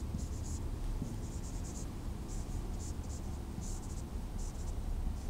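Whiteboard marker scratching and squeaking across the board in short, irregular strokes, over a steady low hum.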